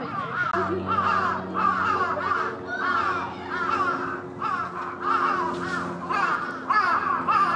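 Crows cawing over and over, several calls overlapping in quick succession. A steady low hum comes in about half a second in and runs underneath them.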